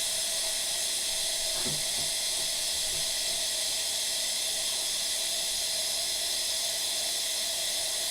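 Air hissing steadily out of a water heater tank as it fills with water, pushed out by the rising water; the tank is close to full.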